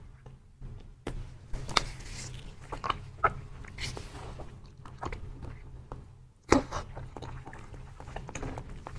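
Close-up mouth sounds of eating a soft jelly stick: sucking the jelly out of its plastic tube, then chewing it with scattered wet smacks and clicks, one sharper smack about six and a half seconds in. A low steady hum sits under it.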